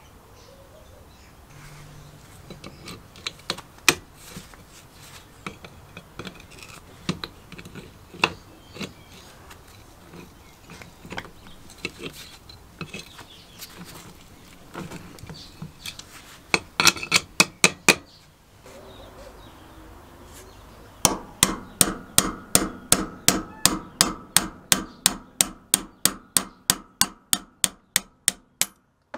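Hammer striking a steel punch to drive a rusted pin out of a chain hoist's hook block held in a vise: a steady run of sharp, ringing metal strikes about three a second through the last third, getting quieter toward the end. Before that come scattered clicks and clanks of pliers and rusty parts being handled, and a quick flurry of strikes about two-thirds in.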